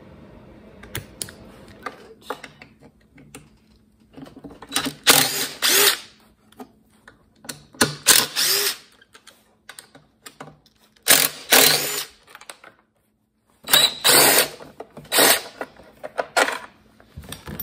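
DeWalt cordless impact driver with a T27 Torx bit running in short runs of about a second, six or so times with pauses between, backing out the shroud screws of an Echo PB-580T backpack blower. Before the first run there are only faint clicks of handling.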